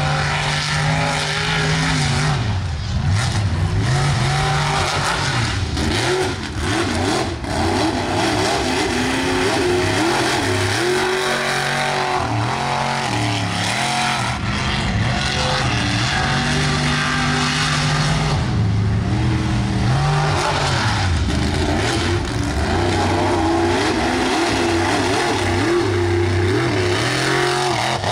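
Mega mud trucks' engines running at high revs while racing. The pitch repeatedly climbs and drops as they rev, shift and slow, with several engines overlapping.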